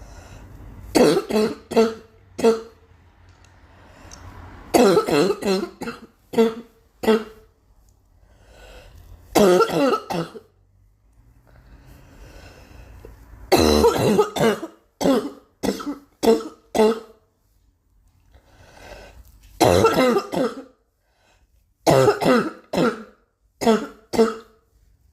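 A girl coughing in repeated fits, each a quick run of two to six coughs, coming every few seconds with fainter breaths drawn in between.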